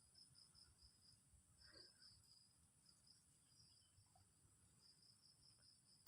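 Near silence with faint insects chirping: a steady high pulsing trill. A single sharp click right at the end.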